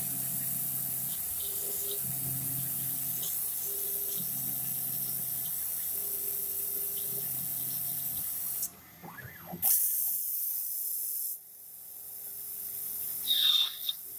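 A CNC gang-tool lathe cutting 304 stainless steel, with coolant flowing in a steady hiss and a machine hum that comes and goes about every two seconds. About nine seconds in, the sound briefly drops, then a loud rush follows. Near the end a short high squeal sounds.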